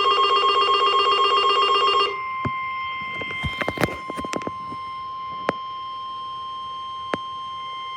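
Weather radio emergency alert: a fast-warbling electronic alert tone for about two seconds, then the steady, single-pitched 1050 Hz NWS warning alarm tone that signals a tornado warning is about to be read. Sharp clicks break in now and then, several of them close together around the middle.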